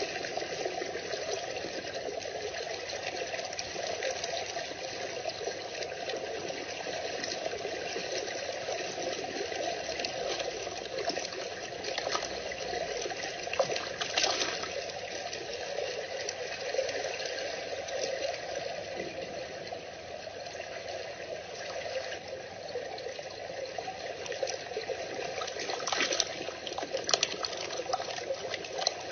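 Steady trickling water, with a few brief louder moments around the middle and near the end.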